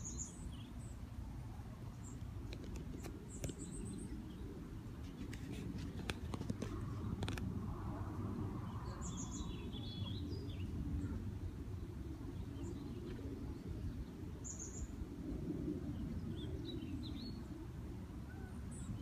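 Small birds chirping now and then: short, high calls every few seconds over a steady low rumble, with a few faint clicks in the middle.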